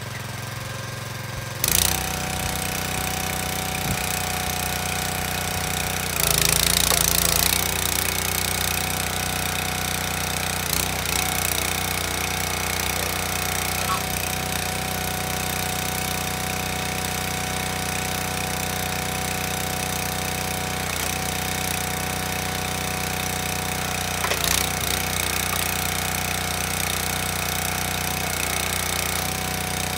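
Small gas engine of a hydraulic log splitter running steadily while cherry logs are split. It gets louder about two seconds in. There is a louder, harsher stretch of a second or so around six seconds in and a shorter one near the end.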